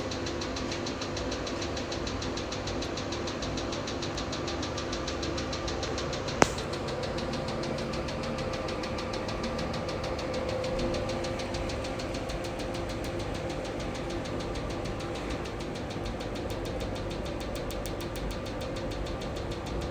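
Pico laser beauty machine firing at its set repetition rate: a fast, even train of sharp clicks, several a second, over the steady hum of the machine's water-cooling system. One louder single click about six and a half seconds in.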